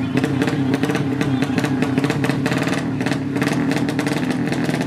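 Modified drag-race motorcycle engine running steadily without revving up, with a rough, irregular crackling clatter over its note.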